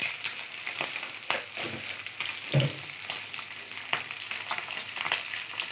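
Panch phoron seeds frying in hot oil in an aluminium karai: a steady sizzle with irregular crackling pops. A brief, louder low sound comes about two and a half seconds in.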